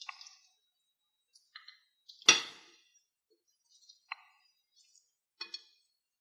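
Utensils clinking against a plate as rocket salad is served onto it: about six light, scattered clinks, the loudest about two seconds in.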